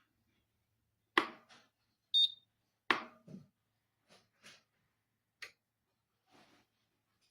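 A small electric travel kettle being handled, giving a few sharp clicks and light knocks, with one short high electronic beep about two seconds in.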